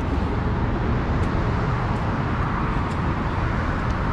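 Steady vehicle and road-traffic noise: an even, continuous low rumble with a hiss over it and no distinct events.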